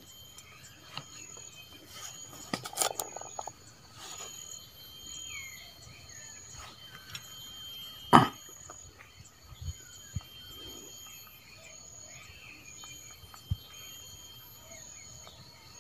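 Insects chirping steadily with a high, evenly pulsing note, under light clicks and rustles from hands handling fishing tackle and plastic bags. One sharp click about eight seconds in.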